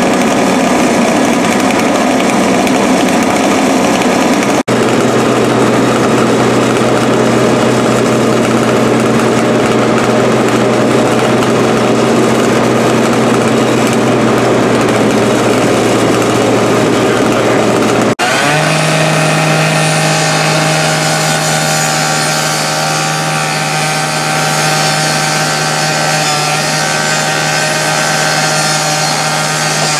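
A loud, steady rush of machine noise gives way, after an abrupt cut about two-thirds of the way in, to a rotary rescue saw (cut-off saw). Its engine holds a steady high pitch while the blade grinds and screeches through the car's sheet metal, throwing sparks.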